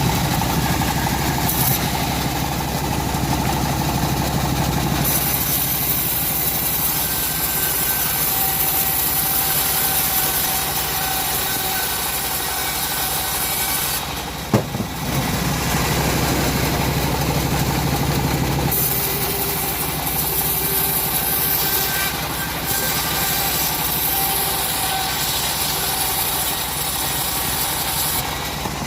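Chainsaw engine running steadily while ripping wood, its sound shifting a few times as the load changes. A single sharp knock comes about halfway through.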